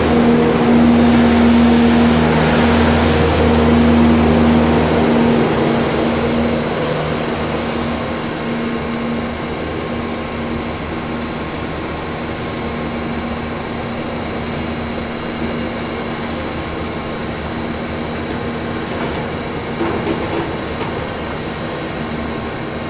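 Bobcat skid-steer loader's engine running close by, then fading over the first several seconds as the machine drives off. After that comes steadier, more distant engine noise as it loads sand bedding into a wagon.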